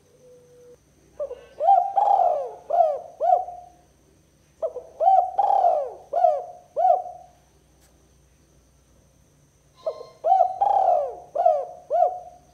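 Spotted dove (tekukur) cooing: three phrases a few seconds apart, each a quick run of about five coos. This is the call used as a lure for wild doves.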